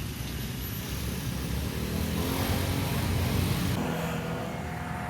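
Passing train: a rumble with rail and wheel noise that grows louder, then drops off abruptly a little under four seconds in, leaving a few faint steady tones.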